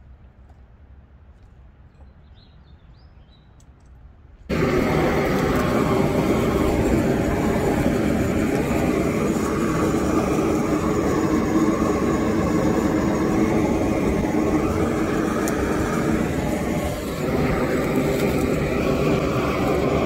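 A few faint bird chirps, then about four and a half seconds in a propane weed-burner torch comes on abruptly with a loud, steady rush of flame, held over whole plucked chickens to singe them. The flame noise dips briefly near the end.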